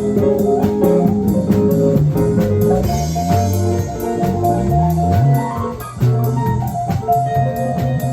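Band playing free-form jazz rock: drums keep a steady stream of strokes under held guitar notes, and low notes slide up and down in pitch partway through.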